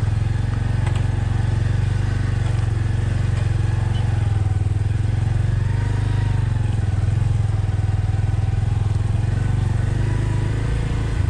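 Motorcycle engine running steadily while the bike is ridden, its pitch rising and falling slightly.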